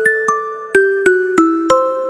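Ringtone-style melody played in a bright mallet-percussion tone: about six struck notes, each with a sharp attack and a fading tail, stepping mostly downward in pitch before rising on the last note.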